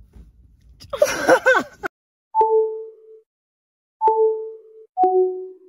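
Three electronic tone hits in the second half, each a sharp click followed by a short high note that drops to a lower held note; the third hit is slightly lower in pitch. About a second in there is a brief voice-like sound that rises and falls.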